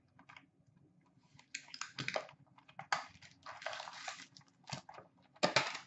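Hands opening a sealed hockey card box: plastic wrap and cardboard packaging rustling and tearing in several short bursts, the loudest near the end.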